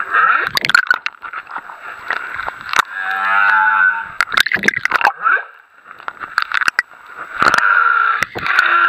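Humpback whale song heard underwater: a run of high squealing tones, low moans and sliding calls, broken by sharp clicks and pops. One call falls in pitch about halfway through. A long high tone comes near the end, with a low moan joining under it.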